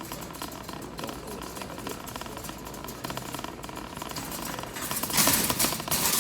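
Steady background noise of a large store's sales floor, with a faint steady hum. About five seconds in comes a louder rustling hiss with a few knocks.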